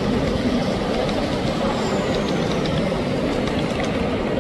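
Steady hubbub of a busy exhibition hall, with an N-scale model express train running along the track close by. A few faint light clicks come near the end.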